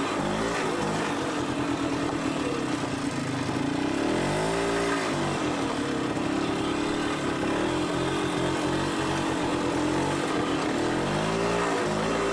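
ATV engine running as it is ridden along a trail, its pitch rising and falling as the throttle is opened and eased, with clear revs about four seconds in and again near the end.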